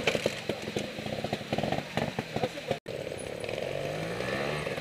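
Trials motorcycle engine: an uneven, popping run at low revs. After a sudden cut about three seconds in, an engine revs up in short, repeated rising pulls.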